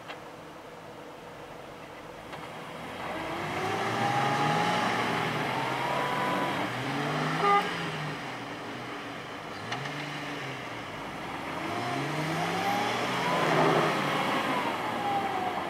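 Jeep engines revving under load in about four rising and falling surges as one Jeep strains on a tow strap to pull another out of deep mud.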